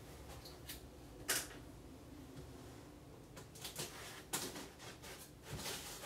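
Cardboard box being handled and opened by hand: scattered light taps, scrapes and tape rustles, with a sharper knock about a second in and busier handling through the second half.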